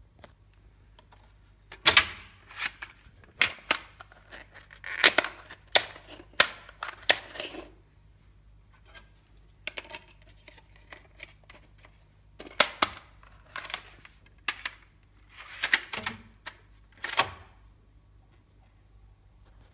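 Plastic clicks and clatter of a broadcast CD cart being handled: a disc is pressed onto the cart's hub and the cart is pushed into the slot of a Denon DN-951FA CD cart player. The sound comes in four short bursts of sharp clicks with quieter ticks between them.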